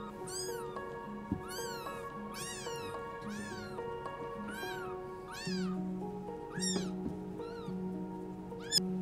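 A newborn kitten mewing, about eight short high-pitched cries roughly a second apart, each rising and falling in pitch, over background music.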